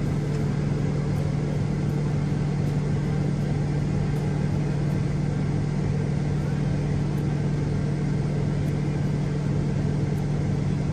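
Combine harvester running steadily while harvesting soybeans: a constant low drone with one steady hum tone that does not change.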